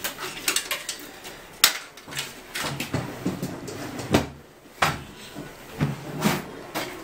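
Irregular clacks and knocks of hands moving cables and parts inside a sheet-steel desktop computer case, with sharper knocks about one and a half, four and five seconds in.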